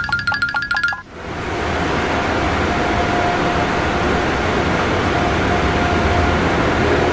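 Cartoon car-wash drying stage sound effect: a rapid clicking for about a second as the dryer lamps come down, then a steady rushing hiss like blowing hot air, which cuts off suddenly at the end.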